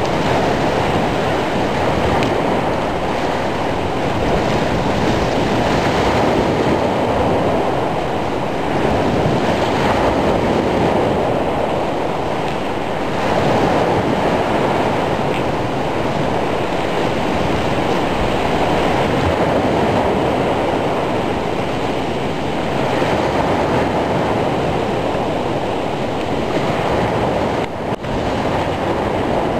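Heavy surf on a stormy sea: breaking waves make a continuous rush that swells and eases every few seconds.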